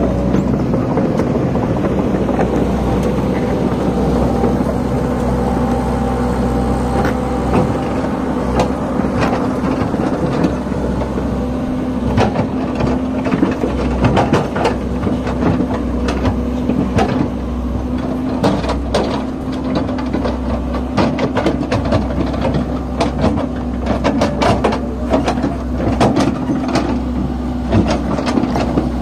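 Komatsu PC130 hydraulic excavator's diesel engine running steadily at a constant pitch. From about seven seconds in come frequent clanks and knocks, thickest in the second half, as the bucket digs and moves soil.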